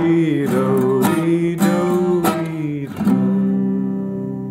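Acoustic guitar strummed, several chords about half a second apart, the last one left ringing and slowly fading near the end.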